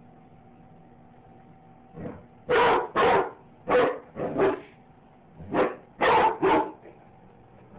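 A dog barking: after a couple of quiet seconds, a run of about eight loud, sharp barks in quick clusters of two or three, which stops shortly before the end.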